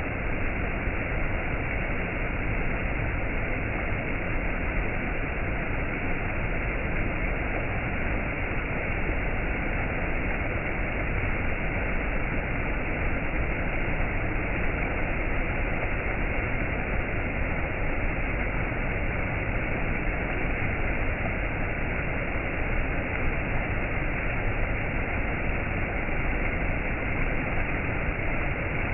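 Waterfall: water falling in a continuous, even rush that never changes.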